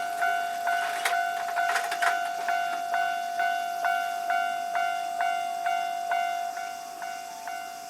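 Japanese railway level-crossing warning bell ringing steadily, about two strikes a second, each clang fading before the next: the signal that a train is approaching. A few sharp clacks sound between about one and two seconds in.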